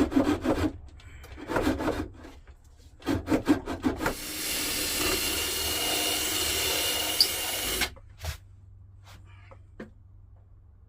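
Wood being cut to make a notch: three short bursts of quick sawing strokes, then a power tool running steadily for about four seconds before cutting off suddenly.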